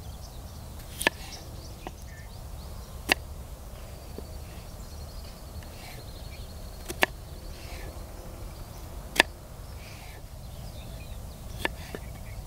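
Kitchen knife cutting through raw peeled potatoes and knocking on a wooden chopping board: sharp, irregular knocks every one to three seconds, a few louder than the rest.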